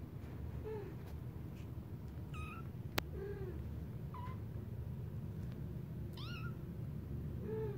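Three-week-old kittens mewing: about six short, high-pitched mews spread out, each rising then falling in pitch. A single sharp click about three seconds in.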